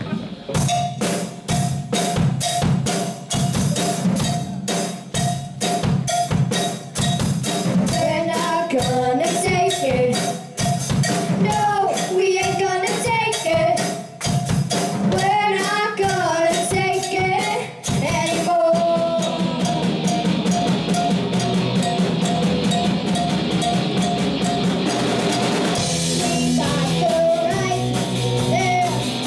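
Amateur rock band playing live, with a steady drum-kit beat up front and a held high note and melodic lines over it. About two-thirds in the drum hits blend into a fuller, more sustained full-band sound.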